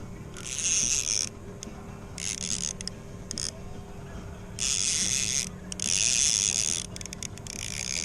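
Fishing reel ratcheting in five bursts of about a second each, as line is pulled off the reel or wound onto it on a striper rod. A faint steady hum runs underneath.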